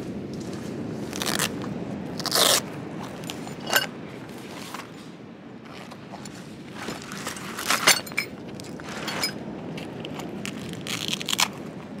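A fabric roll of metal tent pegs being handled and unrolled on gravel: scattered crunches and scrapes of stones, with the odd light clink of the metal pegs. A steady low rumble runs underneath.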